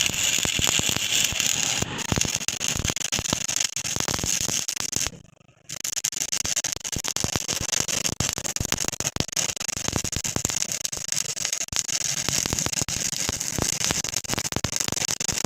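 Electric arc welding on a crack in a truck's underside: a steady, loud, dense crackle. About five seconds in, the arc stops for half a second and is struck again.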